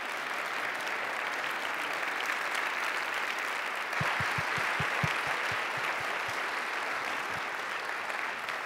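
Audience applauding steadily; it swells in at the start and fades near the end. About halfway through, a short run of low thuds sounds under it.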